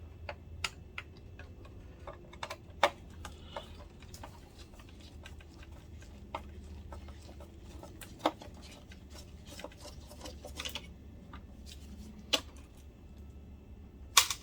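Screwdriver and small metal parts clicking as screws are backed out of a DLP projector's chassis: irregular light ticks, with a few sharper clicks at intervals.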